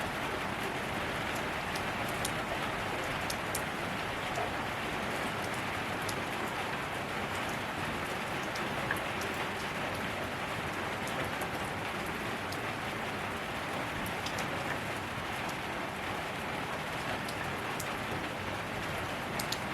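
Steady rain falling on surfaces, a constant hiss with scattered individual drop ticks.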